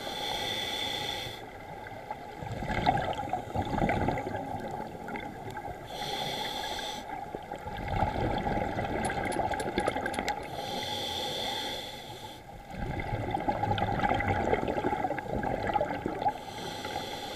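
Scuba diver breathing through a regulator underwater: three hissing inhalations, each followed by a longer stretch of rumbling, gurgling exhaust bubbles.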